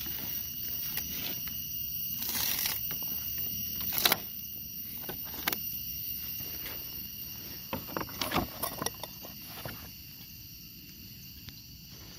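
Rustling and scattered clicks and knocks in dry leaf litter, with a brief rustle about two and a half seconds in and the sharpest click about four seconds in, over a steady high-pitched hum.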